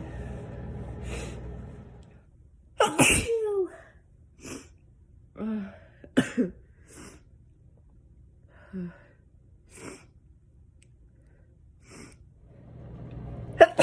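A person sneezes loudly about three seconds in, with a falling voice at the end of the sneeze, then makes several short breathy sounds. Another sneeze comes right at the end. A steady low rumble sounds for the first two seconds and returns just before the last sneeze.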